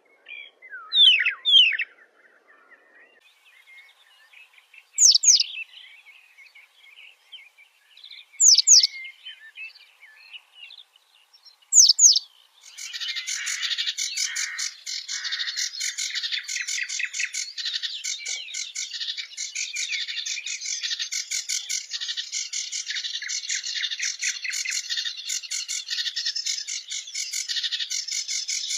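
Wild birds calling: a few loud, sharp down-slurred whistles a few seconds apart, then about 13 seconds in a dense, continuous chorus of many birds chirping takes over.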